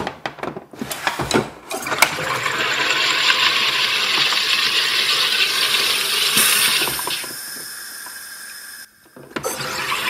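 Countertop soda maker carbonating a bottle of water: a few sharp mechanical clicks, then a loud steady hiss of CO2 for several seconds that fades off. Near the end the hiss starts again.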